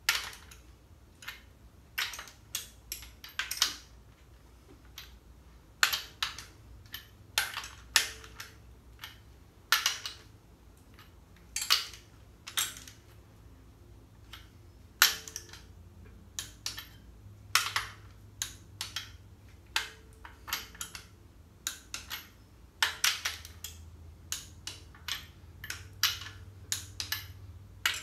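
Ratchet wrench clicking in short runs and single sharp clicks, every second or two, as the nuts on the main case studs of an air-cooled VW engine case are tightened.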